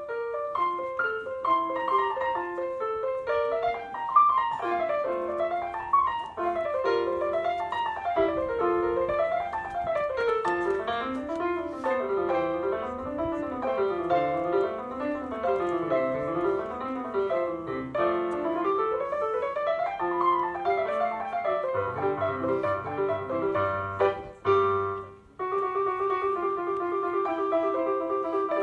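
Casio electronic keyboard played with a piano sound: flowing arpeggios that rise and fall in waves. It breaks off briefly near the end, then goes on with steadily repeated notes.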